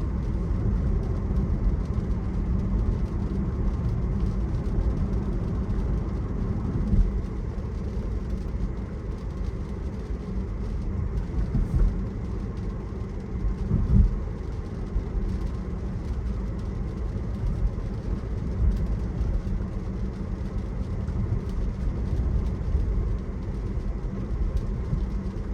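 Road and tyre noise heard inside a Tesla's cabin while it drives on a wet road: a steady low rumble with no engine note, broken by a few brief thumps, the loudest about halfway through.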